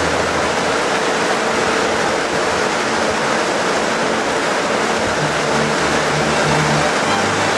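Steady loud running noise of capelin-processing conveyor machinery, with a low hum joining about five seconds in.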